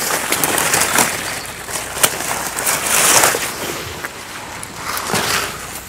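Broad catalpa leaves and branches rustling and swishing as they are pushed aside and handled to pick the pods, with a sharp click about two seconds in.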